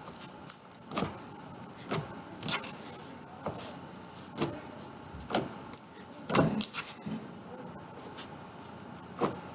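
Butter slime worked by hand, giving short, irregular sticky squishes and pops about once a second.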